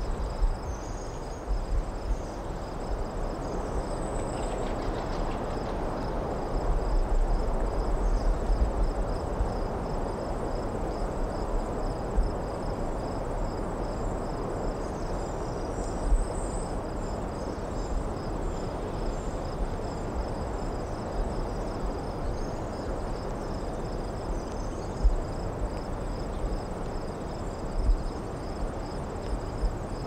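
Crickets chirping in a steady, even pulse over a constant low rush of distant road traffic, with a few brief low bumps.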